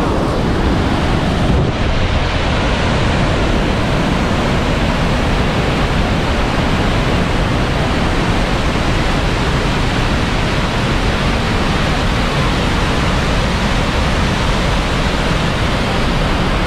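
Bridal Veil Falls at Niagara heard close up from its base: a loud, steady rush of falling and cascading water that never lets up.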